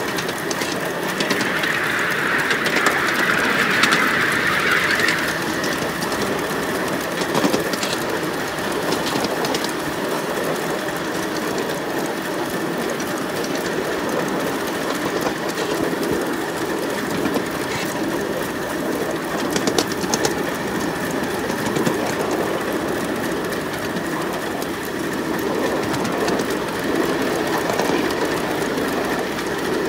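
Ride-on live-steam model of a BR 24 locomotive running along its track, a steady rolling and working noise. About a second in, a few seconds of hissing rise over it and then die away.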